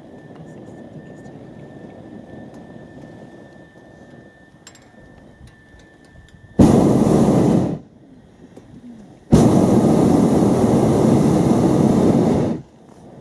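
Hot air balloon's propane burner fired in two blasts, a short one of about a second and then a longer one of about three seconds, each starting and stopping abruptly.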